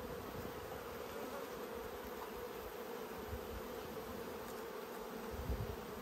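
Honeybees buzzing in a steady hum over an open Langstroth hive.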